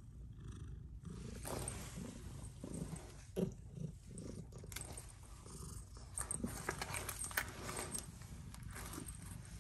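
Domestic cat purring steadily while being stroked and rolling on a tiled floor, with rustling and a few sharp clicks from its harness and leash being handled.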